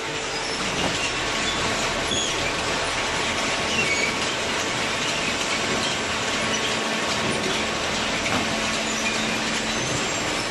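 Hydraulic vertical cardboard baler running: a steady machine hum with short high squeaks now and then.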